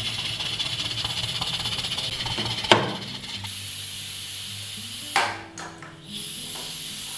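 Aluminium pressure cooker with a weighted valve hissing steam from the valve as it comes up to pressure. There is a sharp click about a third of the way in.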